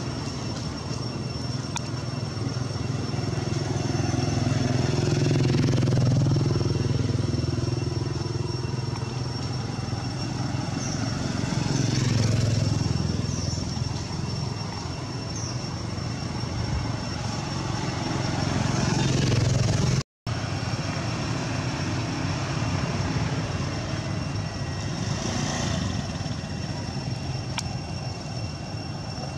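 Motorbikes and other vehicles passing on a road close by, the engine noise swelling and fading about three times. The sound cuts out for a moment about twenty seconds in.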